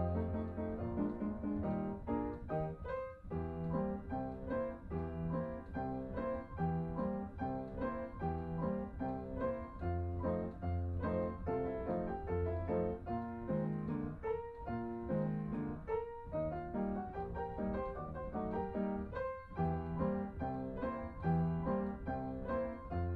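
Background music led by piano, with a low bass line underneath.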